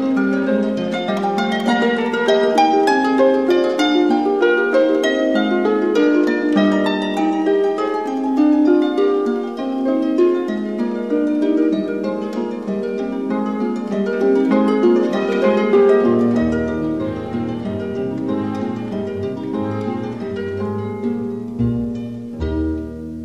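Harp music, a quick, steady run of plucked notes. Lower bass notes join in about two-thirds of the way through.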